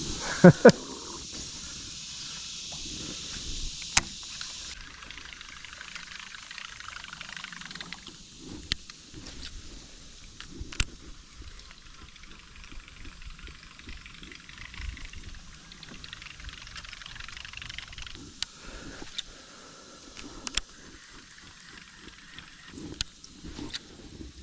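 Outdoor ambience on a small fishing boat: two brief loud sounds right at the start, then a steady high insect buzz that stops abruptly a few seconds in, followed by scattered light clicks, knocks and faint water sounds.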